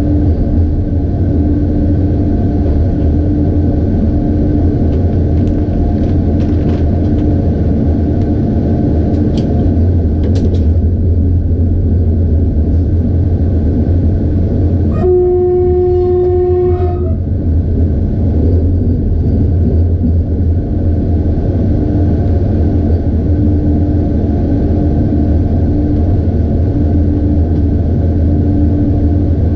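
Cab-ride rumble of a train hauled by an NSB EL18 electric locomotive running steadily on the track. About halfway through, the locomotive's horn gives one steady blast lasting about two seconds as the train nears a tunnel mouth.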